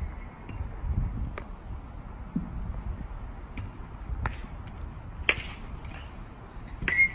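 A fungo bat hitting a ground ball near the end, a sharp ping that rings briefly. A few other sharp smacks and clicks come earlier, the loudest about five seconds in.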